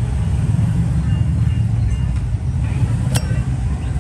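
A single sharp metallic click from a Zippo lighter's metal case being handled, about three seconds in, over a steady low rumble of background noise.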